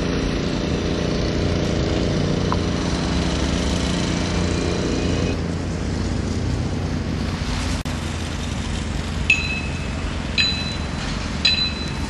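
A machine engine runs steadily at an even pitch and drops away about five seconds in, leaving a steady background rumble. Near the end come three ringing metallic clinks, about a second apart.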